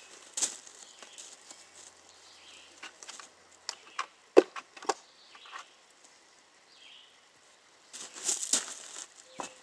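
Bricks knocking and clinking against each other as they are handled and set, a scatter of sharp knocks around four to five seconds in, then a longer scraping rustle near the end.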